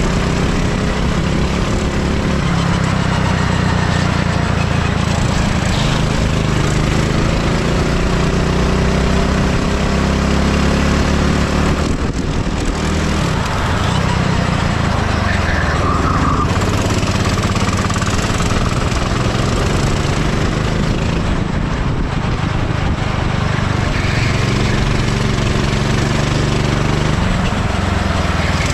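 Go-kart engine running hard on track, its pitch rising and falling with the revs through the corners; about twelve seconds in it drops briefly and then picks up again.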